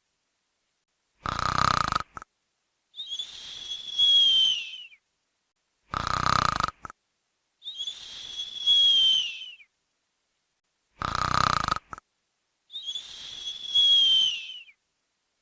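Snoring in a steady repeating cycle: a short snore, then a long high whistle that dips in pitch at its end, about every five seconds. It comes three times, with dead silence between the sounds.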